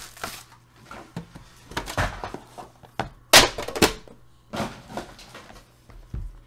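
A series of short knocks and thumps as a cardboard trading-card box, a 2018 Panini Immaculate Collection Collegiate Football box, is handled: the outer box is opened and the inner box is set down on the table. The loudest knock comes about three and a half seconds in.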